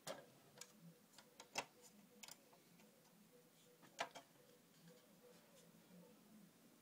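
Faint scattered clicks and taps, several in the first two seconds and a sharper one at four seconds, over a faint steady hum.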